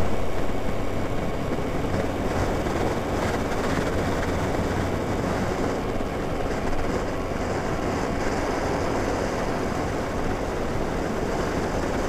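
Honda Biz 105 step-through motorcycle cruising at steady speed, heard from behind its windscreen: the single-cylinder four-stroke engine holds a steady low hum under an even rush of wind and road noise.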